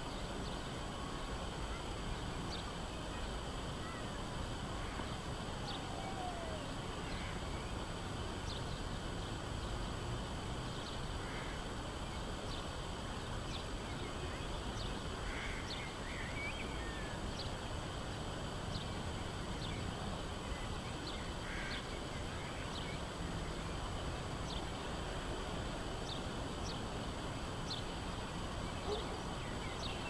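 Outdoor town ambience: a steady background rumble with short, high bird chirps scattered throughout and a few brief, somewhat lower calls.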